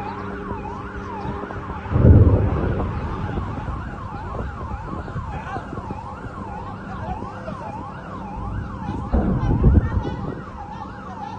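Emergency vehicle siren in a fast yelp, its pitch sweeping up and down a few times a second. Two heavy low rumbles break through it, the louder about two seconds in and another near the end.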